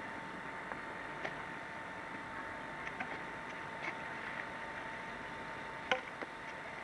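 Steady hiss and hum of an old home-camcorder recording, with a thin constant whine and no voices. A few light clicks sound through it, and a sharper click comes about six seconds in.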